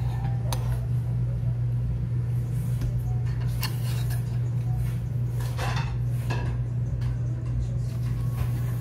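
Spoon and chopsticks clicking against the ramen bowl and a small side dish a few times, over a steady low hum.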